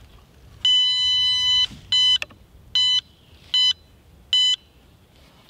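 Wizard 5 handheld metal detector beeping as it passes over a hidden nail or screw in an old timber beam: one long beep of about a second, then four short beeps. Each beep signals buried metal that would ruin a sawmill blade.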